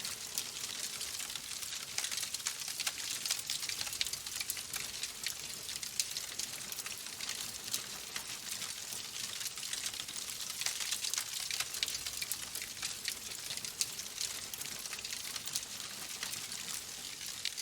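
Wood logs burning in a fireplace, crackling steadily with a dense run of small sharp pops over a soft hiss.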